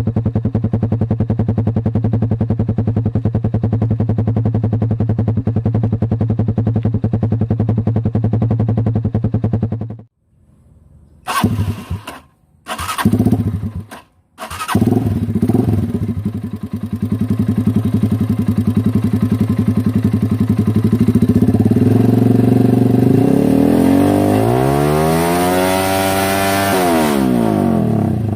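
Single-cylinder motorcycle engine through an open Akrapovic Evo GP exhaust with the silencer removed, held at high revs with a loud, steady note. About ten seconds in, the sound breaks off in short stops and bursts for a few seconds, then the steady note returns. Near the end it is revved up and back down once.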